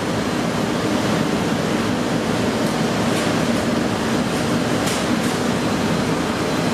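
Steady machine hum and hiss of a running SMT circuit-board assembly line, with a solder-paste stencil printer sweeping its squeegee across the stencil. A few faint clicks come near the middle.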